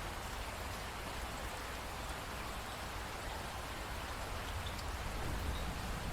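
Steady rain falling, an even hiss with scattered drop ticks and a steady low rumble underneath.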